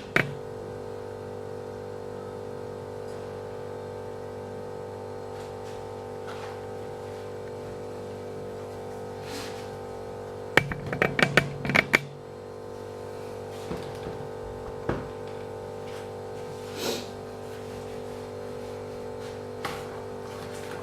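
Steady hum of several held tones, with a quick run of sharp clicks and knocks about ten to twelve seconds in and a few single ticks after it.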